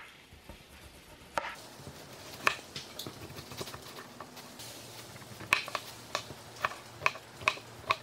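Knife slicing a raw potato on a plastic cutting board, the blade tapping the board with each cut. The taps are scattered at first, then come about twice a second through the second half.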